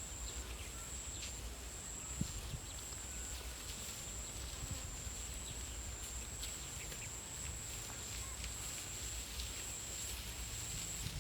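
Rice-field ambience: a steady high-pitched insect drone with brief breaks, over a low rumble and scattered faint clicks.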